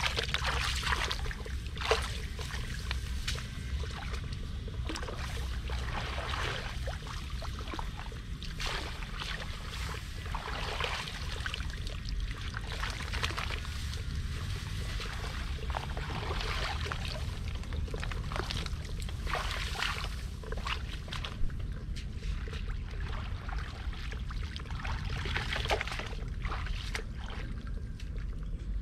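Water splashing and sloshing in irregular bursts over a steady low rumble, with a couple of sharp knocks.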